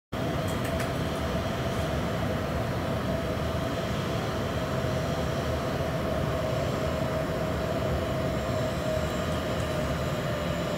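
Boeing 737-800's CFM56 jet engines running at taxi power: a steady low rumble with a steady whine over it.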